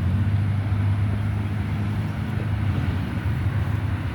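Steady low engine hum, like a vehicle or machine idling close by.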